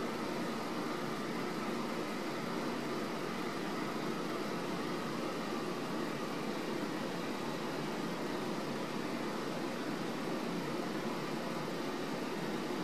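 Steady room noise: an even hiss and low hum that never changes, with no distinct sounds in it.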